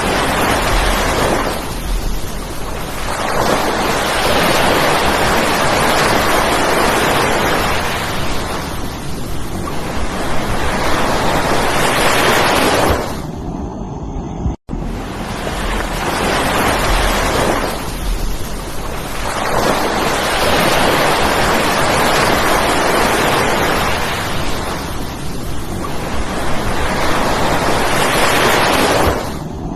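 Surf breaking on the beach in strong wind, the waves swelling and falling every few seconds, with wind buffeting the microphone. The sound cuts out for an instant about halfway through.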